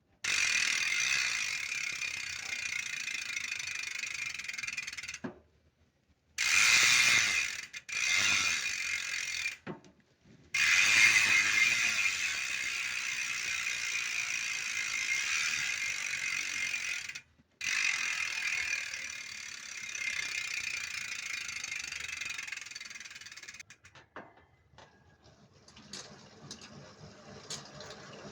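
Bicycle rear freehub freewheeling: the pawls ratchet in a fast, continuous buzz. It comes in several spins of a few seconds each with short breaks between, and fades out near the end.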